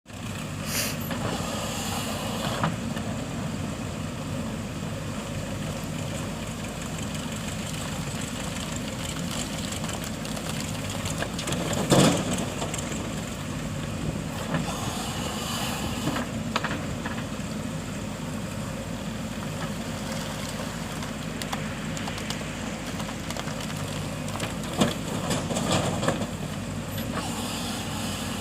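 JCB 3DX backhoe loader's diesel engine running steadily while it works, with occasional sharp knocks and clanks. The loudest knock comes about twelve seconds in.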